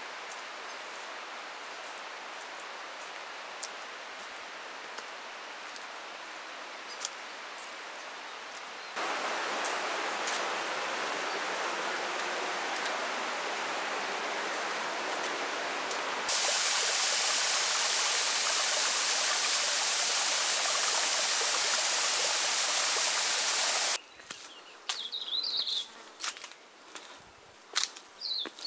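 Rushing water of a bush stream, heard in a string of abrupt cuts: a softer steady rush, then louder from about nine seconds in, and louder and brighter still from about sixteen seconds. It cuts off suddenly near the end, leaving quiet forest with a few clicks and short bird chirps.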